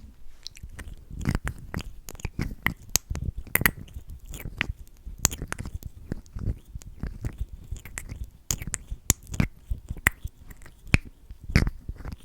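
Close, sticky lip smacks and mouth clicks, lips pressing and parting over freshly applied lip oil: many irregular wet clicks, a few every second.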